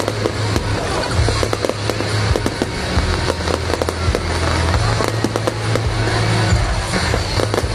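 Aerial fireworks bursting and crackling in quick succession, many sharp bangs one after another, with music playing underneath.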